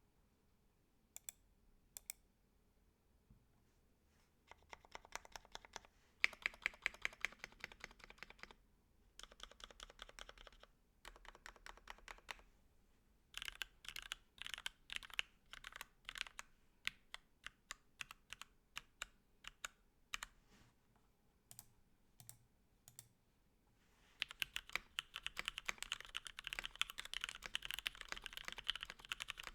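Mechanical keyboard with lubed Gateron Black linear switches (milky tops), PBT keycaps and an aluminum plate in an acrylic Tofu65 case, being typed on. A couple of lone keystrokes, then bursts of quick typing, slower separate key presses in the middle, and fast continuous typing near the end.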